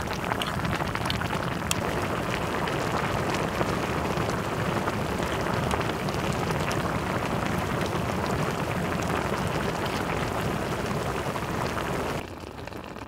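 Spicy seafood ramen broth boiling hard in a wide cauldron-lid pan, a steady dense bubbling with many small pops and crackles. It drops away abruptly about a second before the end.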